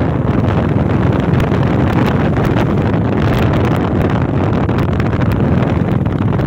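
Wind buffeting the microphone of a handheld phone on a moving Royal Enfield motorcycle, loud and steady, with the motorcycle's engine running evenly beneath it.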